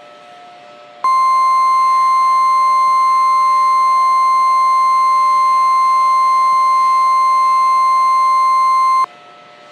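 NOAA Weather Radio 1050 Hz warning alarm tone: one steady, loud, high tone that starts about a second in and cuts off sharply after about eight seconds. It signals that a warning broadcast follows.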